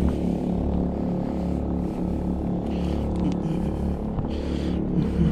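3500-watt portable gasoline generator running steadily, a constant low engine drone, with a few brief scrapes about three and four and a half seconds in.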